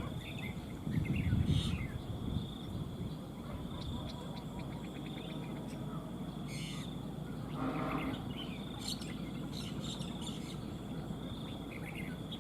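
Red-whiskered bulbuls giving short, scattered chirping calls over a steady, high insect drone.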